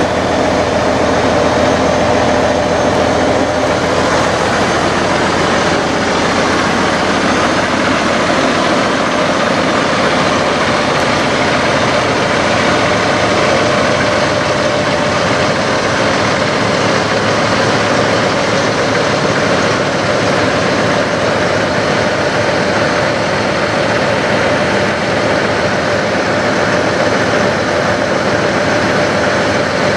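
Peterbilt 389 semi truck's diesel engine idling steadily.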